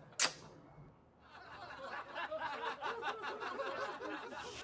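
A sharp click about a quarter second in, then, after a moment of quiet, muffled chatter and laughter from a group of people: the noisy neighbours downstairs.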